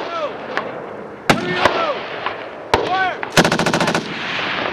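Machine-gun fire: a few scattered single shots, then a short rapid burst about three and a half seconds in, lasting about half a second.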